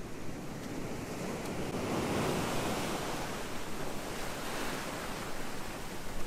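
Ocean surf breaking and washing up the beach, swelling to a peak about two seconds in, with wind rumbling on the microphone.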